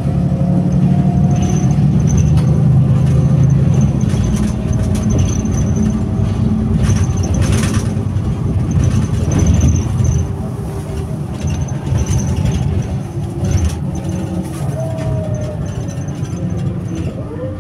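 Mercedes-Benz Conecto G (O345G) articulated bus's diesel engine running at idle: a deep steady rumble with a thin high whistle that comes and goes and a few gliding tones. It eases a little in the second half.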